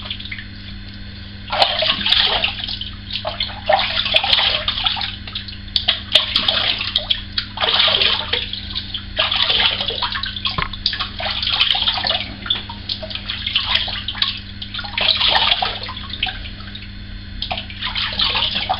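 Handfuls of water splashing at a sink as shaving lather is rinsed off the face after a wet shave, in irregular splashes about every one and a half to two seconds, over a steady low hum.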